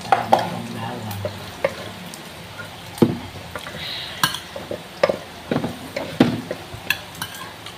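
Wooden slotted spatula stirring and scraping chopped garlic frying in oil in a nonstick grill pan, with irregular knocks against the pan over a steady sizzle. The garlic is being fried until toasted.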